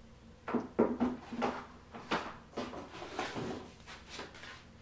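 Cardboard box and foam packaging being handled as a laptop in foam end blocks is lifted out: a run of bumps, scrapes and rustles starting about half a second in.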